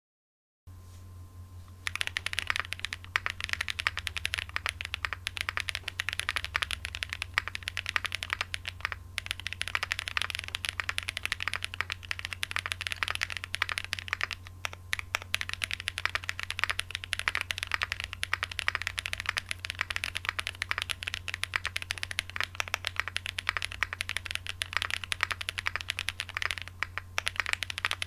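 Continuous fast typing on a Graystudio Space 80 Apollo mechanical keyboard with lubed Holy Boba tactile switches, an FR4 plate and GMK keycaps: a dense stream of keystroke clacks with a few brief pauses. The typing starts about two seconds in, over a steady low hum.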